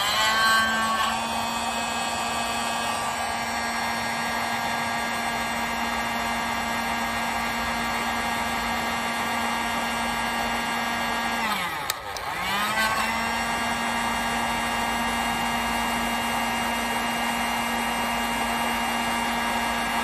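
Electric heat gun's fan motor spinning up and running steadily with a whirring hum, shrinking heat-shrink tubing over a coax connector. About twelve seconds in it winds down briefly and spins back up.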